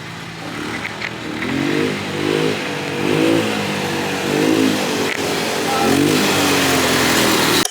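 ATV engine revving, its pitch rising and falling again and again as the throttle is worked, over steady road and wind noise. The sound cuts off abruptly at the end.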